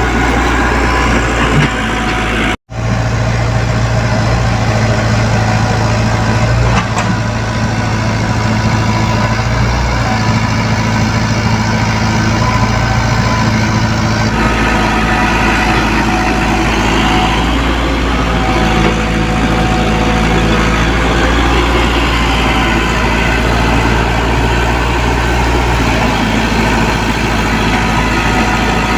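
Diesel engine of a Komatsu PC75UU mini excavator running steadily at a constant speed. The sound cuts out for an instant about two and a half seconds in.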